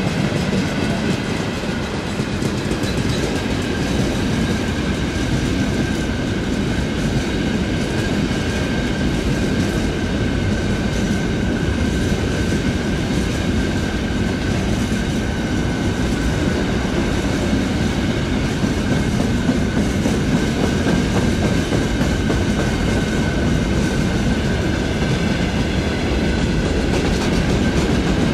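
Wagons of a long mixed freight train rolling past at steady speed, the wheels rumbling over the rails without a break, with a thin steady whine above the rumble.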